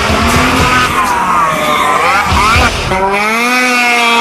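Snowmobile engine revving up and down as the sled skims across water, then holding a steady high pitch from about three seconds in.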